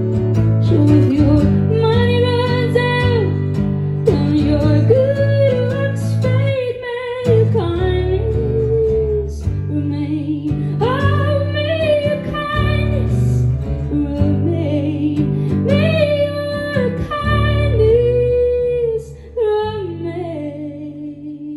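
A woman singing a slow song live with long held notes over acoustic guitar accompaniment, the music fading near the end.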